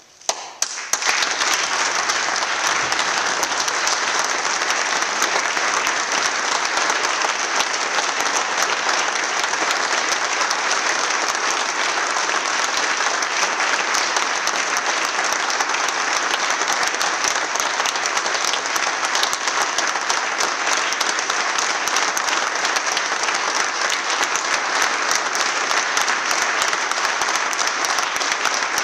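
A large crowd applauding: a few separate claps, then full, steady applause within about a second that keeps going unbroken.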